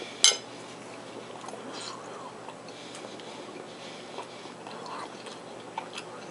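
A metal spoon clinks once against a ceramic plate with a short ring about a third of a second in, followed by quiet chewing and small mouth sounds of someone eating a meatball.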